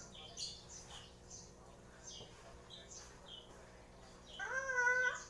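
A pet lory chirping: short high chirps about twice a second, then near the end a louder, longer call that slides up in pitch and holds.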